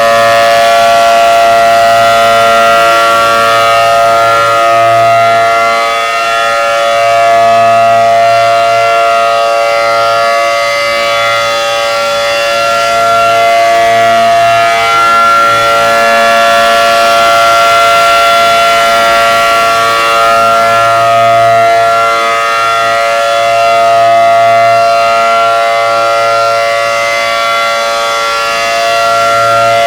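ACA Allertor 125 outdoor warning siren sounding its steady Alert signal: a loud tone held at one pitch, its level swelling and fading gently every several seconds.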